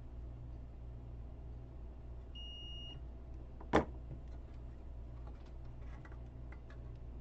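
A multimeter's continuity beep: one short, steady high tone lasting about half a second as the probes bridge a fuse, showing it intact. A little over a second later comes a single sharp knock, the loudest sound, over a steady low hum.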